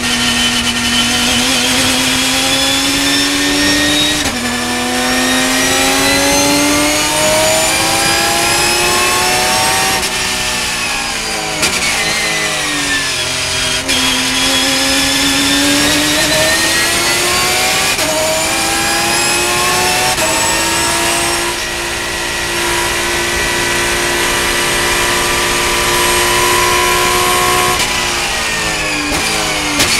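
Porsche race car engine heard from inside the cabin under hard acceleration. Its pitch climbs through the gears, dropping at each upshift. It falls away for a corner about ten seconds in, then holds a steady high note for several seconds before dropping again near the end under braking.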